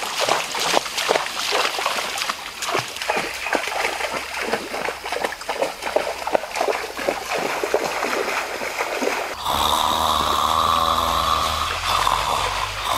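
Feet wading through a shallow stream, an irregular run of splashes. About nine seconds in, this cuts off abruptly and a steady sound of flowing stream water takes over.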